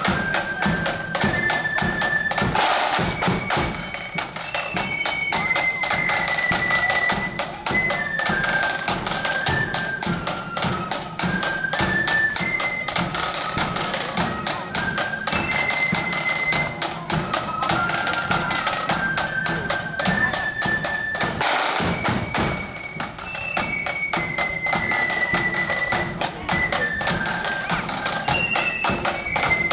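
A marching flute band playing a quick tune in unison over snare drums and a bass drum, the snares rattling densely. About two-thirds of the way through, the tune begins again.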